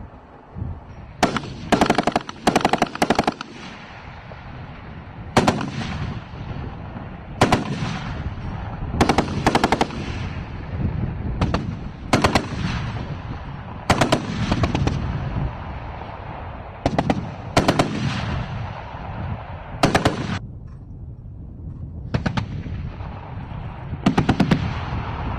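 A BTR-80 armoured personnel carrier's turret machine gun firing short bursts of a few rounds each, about a dozen bursts one to two seconds apart. A low rumbling echo trails each burst.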